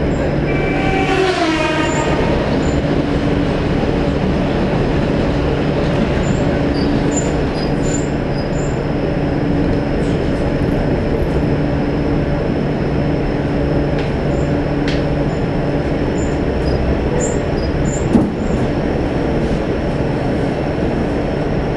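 Electric commuter train running at speed, heard from inside the carriage: a steady rumble of wheels on rail with a steady motor whine and scattered light clicks. About a second in a brief tone falls in pitch, and about eighteen seconds in there is a single short, louder knock.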